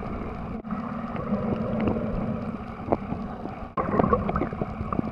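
Sea water sloshing and gurgling, with scattered knocks and clicks, broken by two brief drop-outs.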